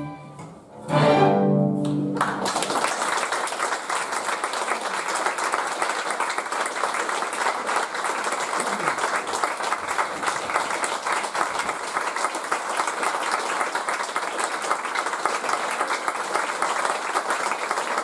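A string orchestra of violins, cellos and double bass plays the closing chords of a tango, the last one struck about a second in and cut off about two seconds in. Audience applause follows, steady and dense, to the end.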